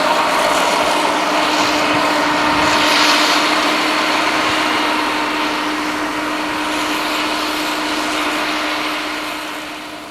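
Harvest machinery running steadily with a constant engine hum, fading away near the end.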